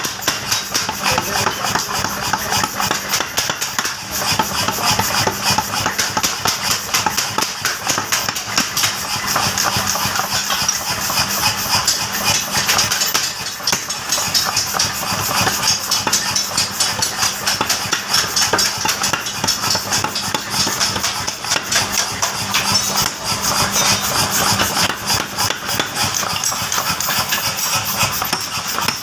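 Rapid, repeated hammer blows on red-hot steel over an anvil, forging a trowel blade, with a steady machine hum running underneath.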